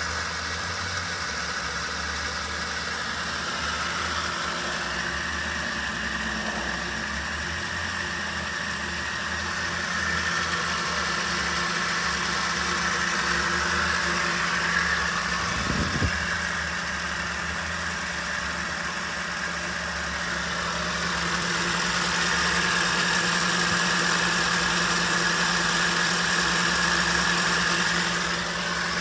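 2009 Ford F-150's V8 engine idling steadily, heard up close under the open hood, with one brief click about halfway through.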